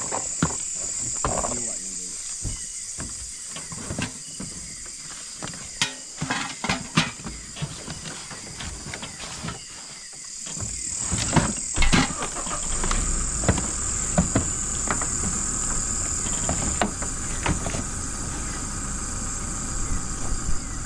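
Cargo being shifted in a pickup truck bed: scattered knocks and clunks with the rustle of a plastic tarp and bags, over a steady high chorus of night insects. About twelve seconds in, a low rumble joins.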